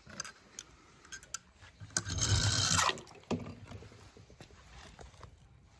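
Water splashing and sloshing in a plastic tub, loudest for about a second near the middle, with a few light clicks and knocks around it.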